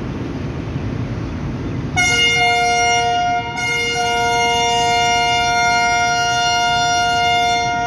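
A train's multi-tone air horn sounds a short blast and then a long one of about four seconds, over the low rumble of the slowly moving train.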